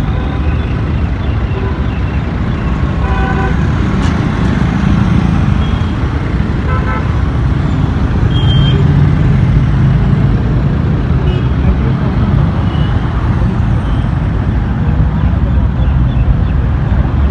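Busy mixed road traffic: motorcycle, scooter, truck and bus engines running past in a steady low rumble that swells about halfway through. Several short horn toots sound over it.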